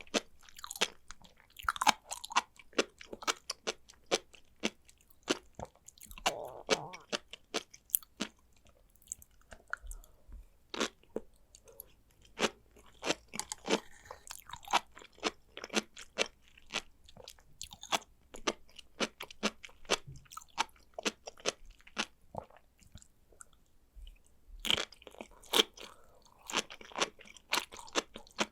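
A person chewing sea grapes, the small bead-like seaweed: many small sharp clicks come in irregular clusters, thickest about two seconds in, around a quarter of the way through, and near the end.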